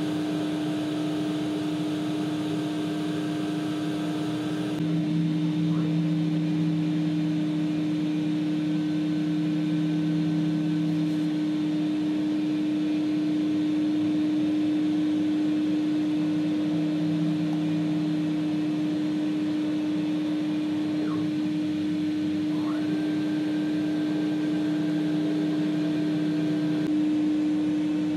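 CNC wood router milling MDF with an 8 mm ball-nose cutter: a steady spindle hum with a higher whine that breaks off and comes back a few times as the machine moves. The cutting noise grows a little louder about five seconds in.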